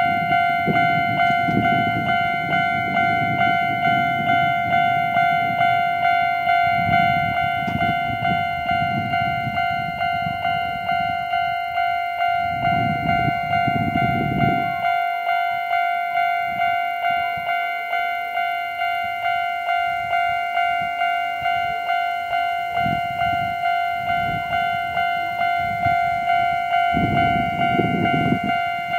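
Japanese railway level crossing's warning alarm ringing steadily, about two strikes a second. A train rumbles over the crossing through the first half, and its sound cuts off about halfway.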